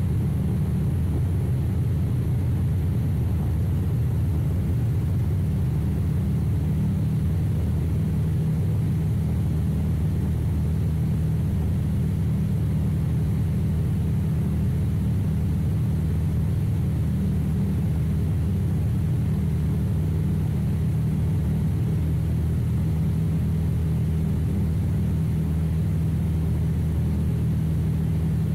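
High-wing light aircraft's piston engine and propeller droning steadily in cruise flight, heard from a camera mounted on the airframe.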